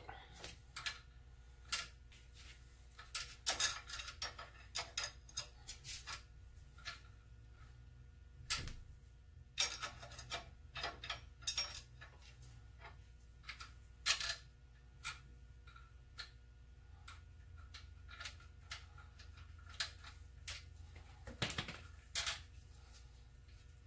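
Irregular metallic clicks and clinks of tools and steel parts being handled at a lathe's motor mount while it is loosened to free the drive belt. They come in scattered clusters, some with a short metallic ring, and the sharpest comes about eight and a half seconds in.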